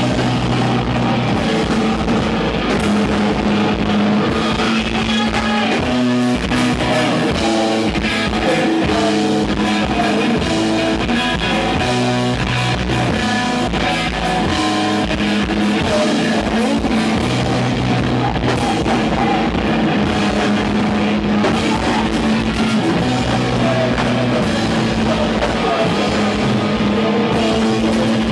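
Live rock band playing loud: electric guitars, bass guitar and drum kit, with the riff moving through stepped bass notes partway through.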